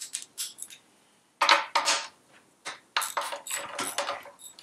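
Metal hand tools clinking as a socket is fitted and a ratchet wrench works on the engine mount nuts, with irregular short metallic clicks and clinks that come thicker in the second half.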